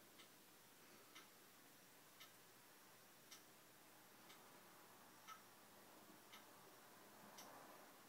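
Near silence with faint, evenly spaced ticks, about one a second.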